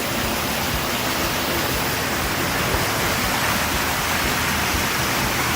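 Water rushing and splashing through an aquarium's life support system: a steady hiss of moving water with a faint low hum beneath it.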